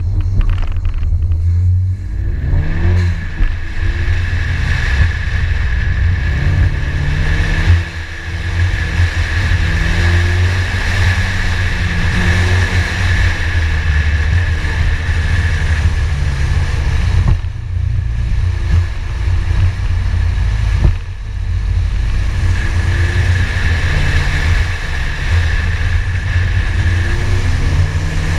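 Ford Focus ST's turbocharged 2.0 L EcoBoost four-cylinder being driven hard through an autocross course, its pitch repeatedly rising under acceleration and dropping as the driver lifts and brakes, over a heavy low rumble and a steady high whine. The engine briefly goes quieter three times.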